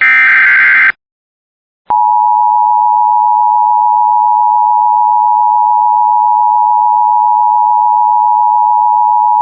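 Emergency Alert System tones: a one-second burst of SAME digital data, then after about a second of silence the steady two-tone EAS attention signal (853 and 960 Hz), which marks the start of an emergency alert.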